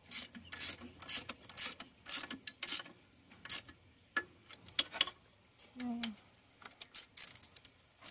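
Hand ratchet wrench clicking in short bursts of back-strokes with brief pauses, as bolts are run down snug.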